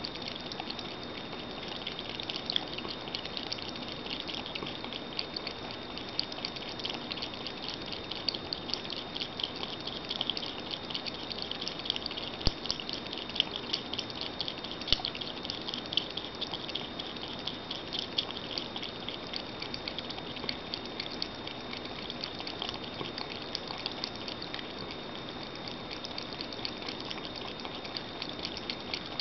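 Siamese cat lapping water from a glass bowl: a rapid, continuous run of small wet clicks from its tongue, a few louder ones midway.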